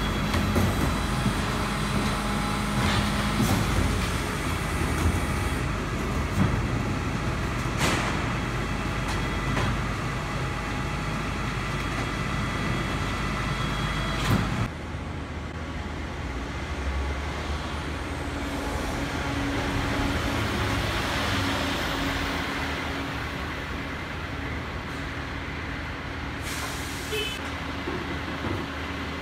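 Garbage truck's diesel engine running, with a few sharp clunks and hissing in the first half. About halfway through the sound changes abruptly to a quieter, steadier engine hum.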